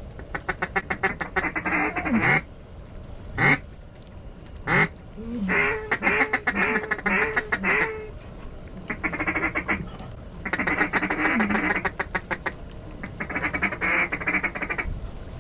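Duck quacking in hen-mallard style: a descending string of about five quacks, plus repeated bursts of rapid chattering clucks.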